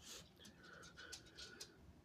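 Near silence: a person's faint breaths and sniffs while a sneeze builds.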